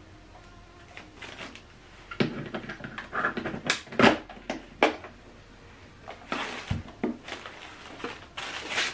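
Handling noise from setting up the soundbar: scattered clicks and knocks with bursts of plastic bag rustling, the sharpest knock about four seconds in.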